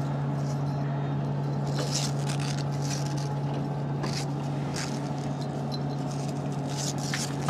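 Steady hum of the space station's cabin ventilation, with scattered short clicks and rustles from the ARED (Advanced Resistive Exercise Device) being handled and set up.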